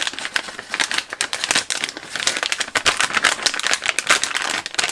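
Clear plastic bag of small circuit boards crinkling as it is handled, a dense, irregular run of crackles.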